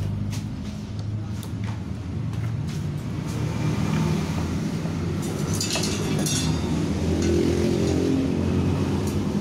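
An engine idling steadily, with small clicks and rattles of plastic parts and wiring connectors being handled on a scooter; a brief hiss about five and a half seconds in.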